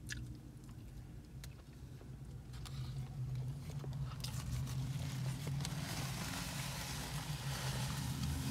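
A person chewing a mouthful of takeout food, with small clicks of a plastic fork against a foam container, over a steady low hum inside a car. A rustling hiss grows from about three seconds in.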